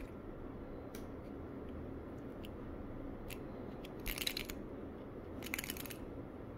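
Small clear plastic blister pack holding a replacement vape coil crackling as it is handled in the fingers, in short bursts: a faint one about a second in, and louder ones around four seconds and near six seconds, over a steady faint background hum.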